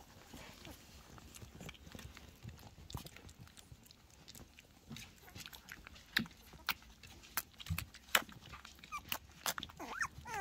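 Three-week-old German Pinscher puppies nursing from their mother: a run of quick wet sucking and smacking clicks, with a few small squeaks near the end.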